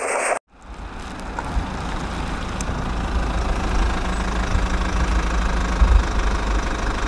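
Engine idling sound, steady with a heavy low rumble, for a toy backhoe loader. It starts after a brief silence about half a second in and builds up over the next second.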